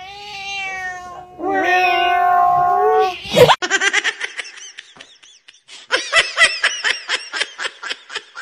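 Domestic cat yowling: two long, drawn-out meows with a wavering pitch, the second louder, as if answering back. After a sudden break, a quick string of short, repeated vocal sounds fills the rest.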